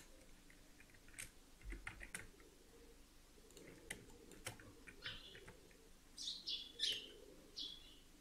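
Faint scattered clicks of a computer mouse and keyboard as a 3D model is edited. In the second half there are a few short bird chirps.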